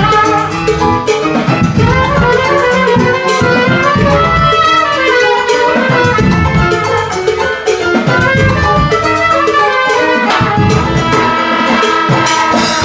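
Live band playing a mambo, the trumpet taking the lead over keyboard and drums.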